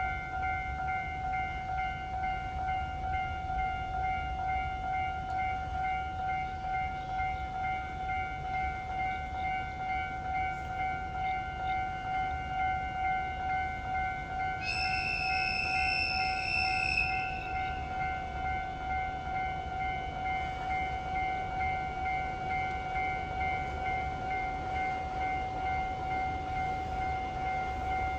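A level-crossing warning alarm ringing steadily over the low rumble of a passing freight train. About halfway through, a high-pitched train horn sounds once for about two and a half seconds.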